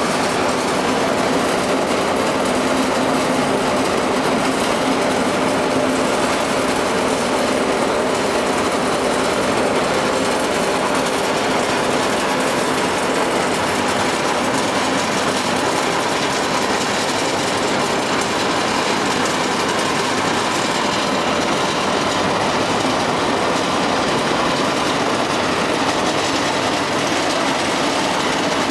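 Vertical ring-die biomass pellet mill and its inclined conveyor running steadily, producing pellets. The machine noise is loud and unbroken, with a steady hum in it.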